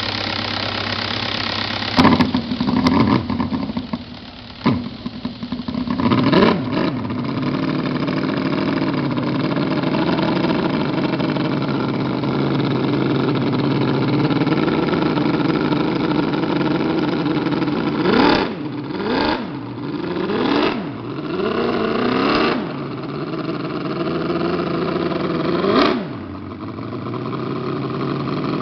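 Handmade miniature multi-cylinder model engine being spun by a cordless drill for about two seconds, then catching and running. Its revs sweep up and down a few times, it settles into a steady run, and near the end it is revved up and down several more times.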